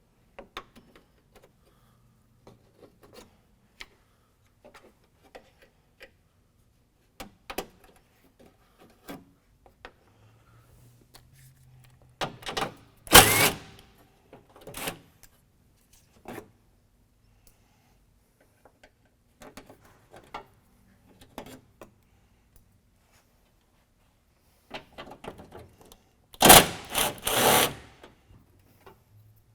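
Tools at work on the bumper's 10 mm screws and fasteners: scattered small clicks and knocks, and twice a louder noisy burst lasting about a second and a half, about halfway through and again near the end.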